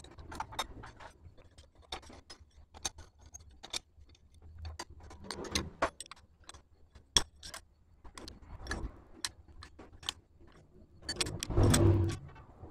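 Scattered small metallic clicks and clinks of bolts, washers and hand tools being handled on a Honda CG125's aluminium cylinder head, with a louder, quicker run of clicks near the end as a socket wrench is worked on a head bolt.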